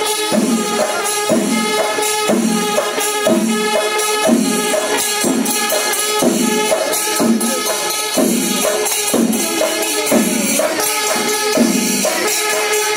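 Kerala temple festival percussion music: drums beating in a steady pulse about once a second under continuous jingling cymbals, with a held pipe-like tone throughout.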